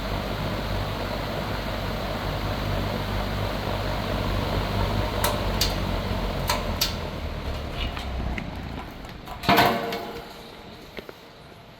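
R&M Hunter 20-inch steel box fan (model FZ20) running on high with a steady whir and motor hum, a few light clicks in the middle. The hum stops about eight seconds in and the whir dies away as the fan winds down, with one short loud clunk about a second later.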